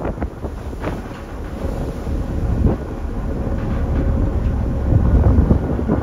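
Strong wind buffeting the microphone on a ferry's open deck in rough seas: a heavy low rumble that swells louder about two-thirds of the way through, with scattered knocks.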